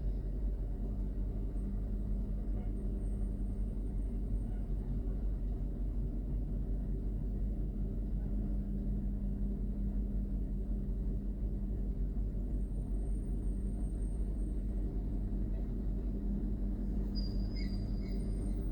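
Heavy vehicle's diesel engine running steadily at an even speed, a constant low drone with no revving.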